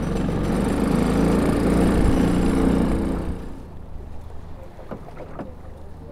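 A boat on choppy open water: wind and water noise with a low droning rumble. It drops off sharply about three and a half seconds in, leaving quieter water sounds and a few faint clicks.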